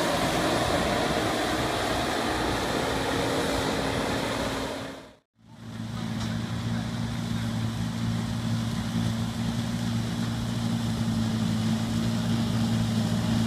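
ROPA self-propelled sugar beet harvester working a row, its diesel engine and lifting machinery running as a continuous drone. The sound drops out briefly about five seconds in, then returns as a steady hum with a firm low tone.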